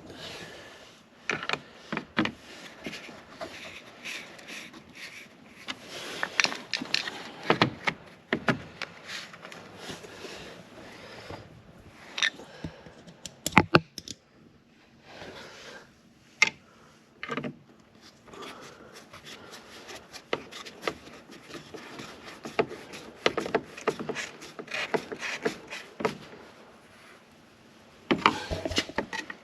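Irregular clicks, scrapes and rattles of hand work on plastic parts as a fog light is screwed back into its mounting, with a sharper cluster of clicks about thirteen seconds in.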